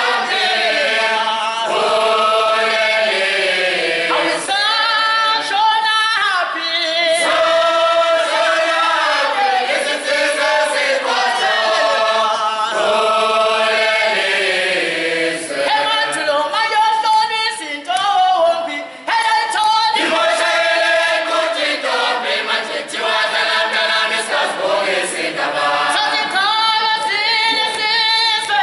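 A group of voices singing a Zulu song a cappella in harmony. The singing eases off briefly about two-thirds of the way through.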